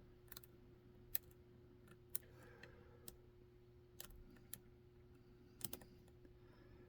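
Faint, irregular clicks of a lock pick working the pins of a Dom 333 RN lock, about a dozen spread over several seconds, over a steady low hum.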